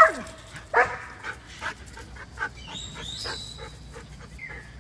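Hungry baby goats bleating: two loud calls in the first second, then fainter short calls with light scuffling.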